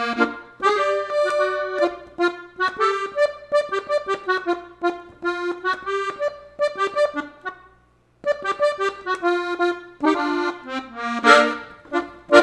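Three-row diatonic button accordion tuned in F playing a lively melody of quick single notes and short chords, stopping briefly just before eight seconds in and then carrying on.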